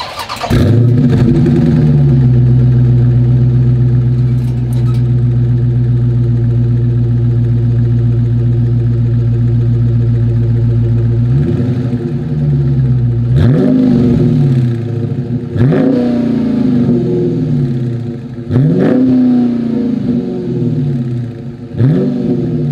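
Dodge Charger Scat Pack's 392 Hemi 6.4-litre V8 exhaust: the engine fires up and settles into a steady idle, then from about halfway in it is revved five times, each rev rising sharply and falling back to idle.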